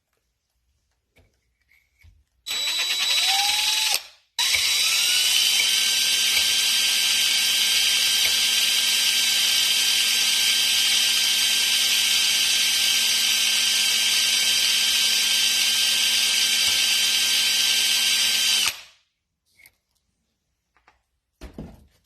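Electric drill spinning a two-stone cylinder hone with extra-fine stones inside a lubricated brake wheel cylinder bore. It starts about two and a half seconds in with a rising whine, stops for a moment, then runs at a steady speed for about fourteen seconds before cutting off.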